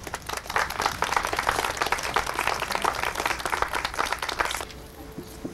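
Audience applauding with many hands clapping, cutting off abruptly near the end.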